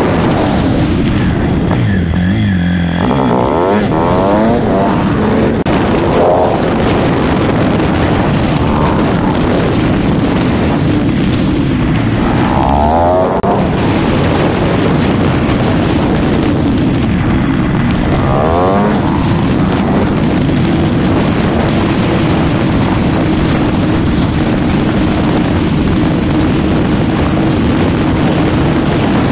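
Husqvarna 701's single-cylinder four-stroke engine running on the move, rising in pitch a few times as it accelerates, under heavy wind rush on the microphone.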